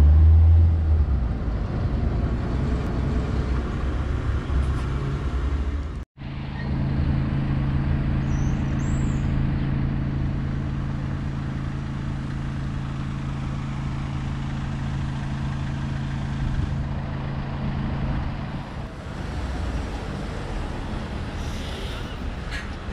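Street traffic: vehicles passing, with a steady engine hum through the middle and a bus approaching near the end. The sound cuts out for a moment about six seconds in.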